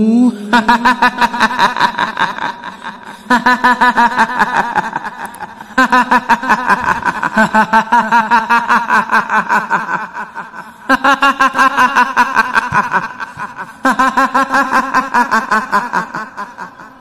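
Kuntilanak ghost's shrill 'hihihi' cackle: a woman's high-pitched laugh in rapid pulses, coming in about five long bouts, each fading away before the next one starts.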